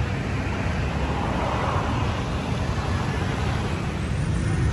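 City street traffic: a steady rumble of passing vehicles, swelling briefly about two seconds in.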